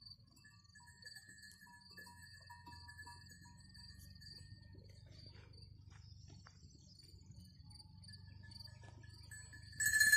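Crickets chirping in a steady pulsing trill. Just before the end a small bell jingles loudly and briefly.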